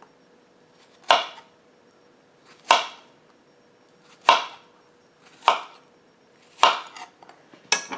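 Knife slicing a peeled ripe plantain into rounds on a cutting board: six cuts about a second and a half apart, each a short knock as the blade goes through and meets the board.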